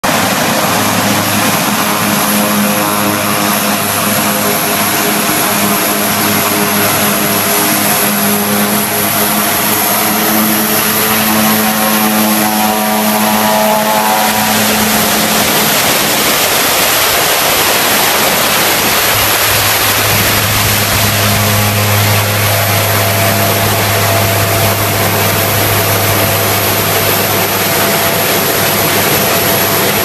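Mitsubishi MU-2's Garrett TPE331 turboprop engine running on the ground for an engine test: a loud steady propeller drone with a high turbine whine over it. Its low tones shift about halfway through, as the power setting changes.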